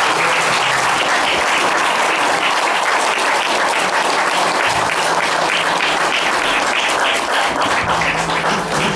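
Audience applauding, a dense patter of hand claps; the clapping grows sparser near the end.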